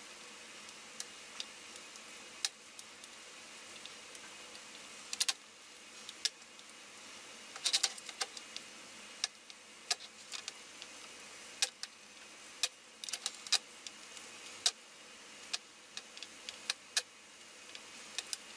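Irregular small clicks and ticks of soldering work on an instrument-cluster circuit board: iron tip and solder wire tapping on the connector pins. Some clicks come singly and some in quick clusters, over a steady faint hiss.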